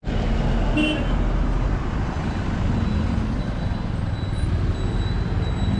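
Road traffic passing close by: a bus and a motor scooter going past with engine and tyre noise over a steady traffic hum.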